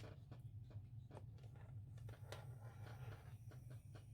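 Faint scratches and light taps of a scoring tool drawing a score line into cardstock on a scoring board, over a low steady hum.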